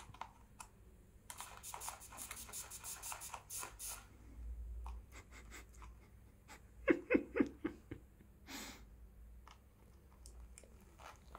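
A cockatiel bathing in a shallow plastic tub, beating its wings in the water. There is a quick run of splashes for about two seconds early on, then a handful of louder separate splashes and taps around the middle, and a brief hiss.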